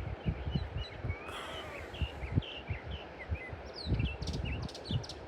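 Wild birds chirping in short varied calls, with a quick run of sharp high chirps about four seconds in, over irregular low thumps.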